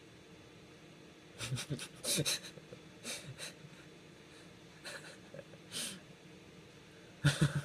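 A young man's stifled laughter: breathy chuckles and snorts through the nose in short bursts, the loudest near the end.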